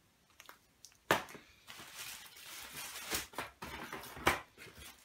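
Firework packs being rummaged through and lifted out of a cardboard box: rustling of plastic wrapping and cardboard, with a few sharp knocks, the first and loudest about a second in.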